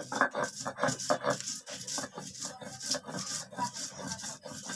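Cylindrical stone roller (nora) rubbing back and forth on a flat grinding stone (shil), crushing fresh coriander leaves into a paste. It goes in quick, evenly repeated gritty strokes, several a second.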